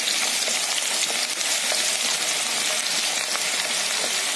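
Chopped onions sizzling steadily in hot oil in a kadhai, with a wooden spoon stirring through them.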